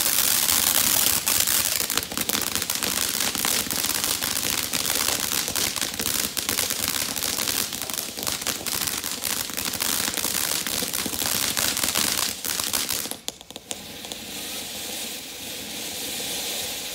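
Pyro Demon Everlasting Mayhem fountain firework spraying: a steady hiss thick with sharp crackles, dropping about thirteen seconds in to a quieter, thinner hiss with fewer crackles.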